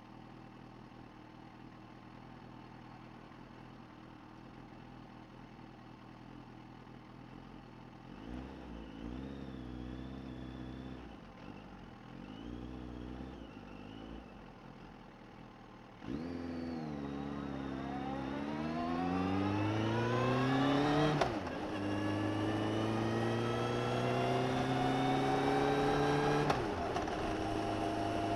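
Suzuki GSX1250FA's inline-four engine, recorded from under the seat, idling, then blipped twice, then pulling away hard: the pitch climbs, drops at an upshift about 21 seconds in, climbs again and drops at a second upshift near the end before holding steady.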